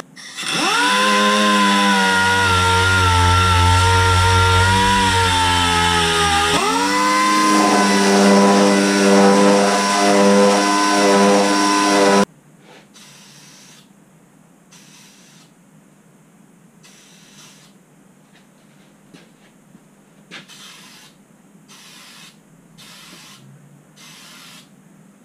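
High-speed electric grinder running on steel bodywork during rust repair. Its whine sags in pitch under load and climbs back twice, with a low rumble while it bears on the metal. About twelve seconds in it cuts off suddenly, and short hissing bursts follow about a second apart.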